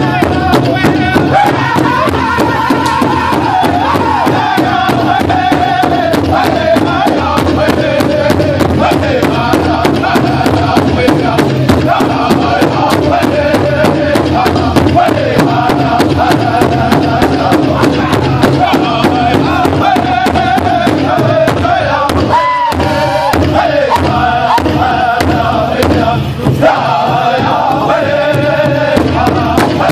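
Powwow drum group singing in unison while beating one large shared hand drum together with padded sticks in a steady, even beat.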